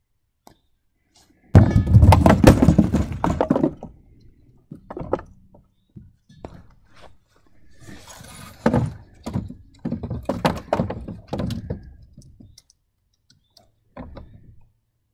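Bowling ball striking wooden bowling pins on a plywood lane, the pins clattering down about a second and a half in. Later, a run of knocks and clacks as the pins, hung on cords, are pulled up into the homemade pinsetter frame.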